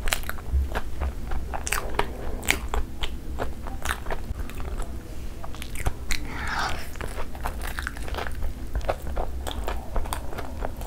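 Close-miked eating sounds: chewing and crunching of a crumb-coated fried mozzarella cheese ball, with many sharp crisp clicks and a fresh bite about six seconds in.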